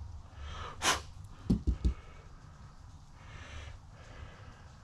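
Slow breathing close to the microphone, swelling and fading every few seconds. About a second in there is a short, sharp hiss, and right after it three quick, dull, low thumps.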